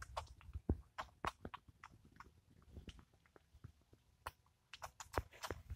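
A fish chomping at food at the water's surface: an irregular run of sharp smacking clicks, with louder ones a little under a second in and again near the end.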